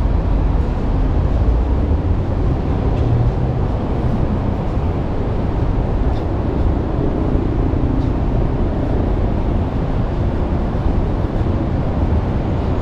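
Steady low rumble of city traffic noise, with no single event standing out.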